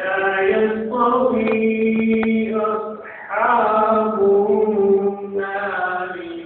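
A man reciting the Quran in a slow melodic chant, drawing out long held, ornamented notes. The voice starts abruptly, takes a short breath about three seconds in, then carries on with a second phrase.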